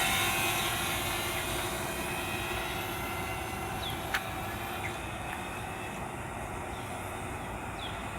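DJI Mavic Mini quadcopter's propellers whining and fading away as the drone flies off, leaving a steady background hiss; a single sharp click about four seconds in.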